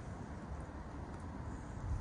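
Wind noise: a steady low rumble with no distinct events.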